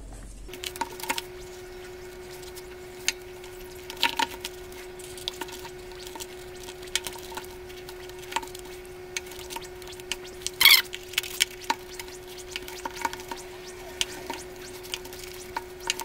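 Hands handling and pressing paper onto a cardboard box: scattered light rustles and clicks, with a louder crinkle of paper about ten seconds in. A faint steady hum runs underneath.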